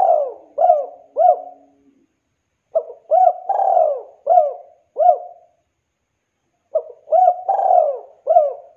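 Spotted dove (tekukur) singing its cooing song: phrases of five or six short coos that each rise and fall in pitch. One phrase, already under way, ends about a second and a half in, a second runs from about three to five and a half seconds, and a third starts near the end.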